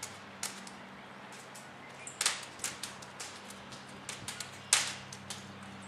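Irregular sharp knocks and clicks, with a cluster of louder ones about two seconds in and the loudest single knock near the end.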